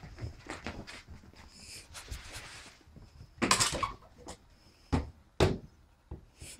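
Pets scuffling, with a run of knocks and thumps. A louder burst of noise comes about three and a half seconds in, and two sharp thumps come near five seconds.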